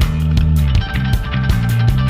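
Background music with guitar, a heavy bass line and a steady drum beat.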